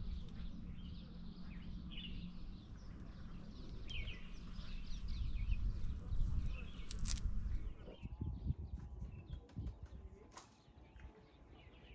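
Small birds chirping and tweeting in quick, short calls over a low rumbling background, with the calls thinning out after about seven seconds.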